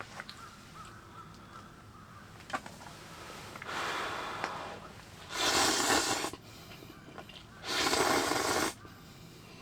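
A person eating, with three breathy mouth noises of about a second each, the second and third loudest.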